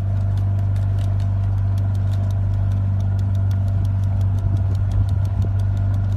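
Motorboat engine running steadily: a loud, even low hum with a fast, regular ticking over it.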